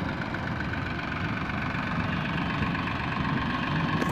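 Sonalika DI 750 tractor's diesel engine running steadily at low speed as it pulls a tipping trailer.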